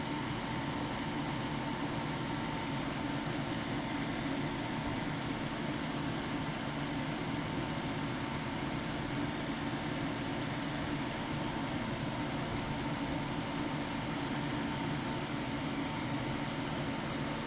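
Steady mechanical hum with a faint constant tone, like a running fan. A few faint ticks sound over it.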